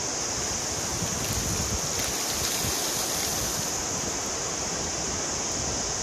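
Fast-flowing mountain water rushing steadily, with a low wind rumble on the microphone.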